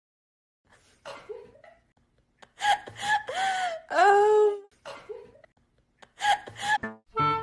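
A person laughing in a few bursts: briefly about a second in, longest in the middle, and once more near the end.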